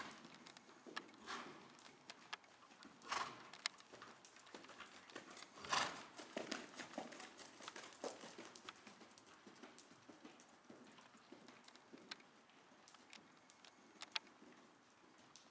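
A cantering horse's hooves striking soft sand arena footing: faint, irregular muffled thuds, with a few short louder rushes of noise, the loudest about six seconds in.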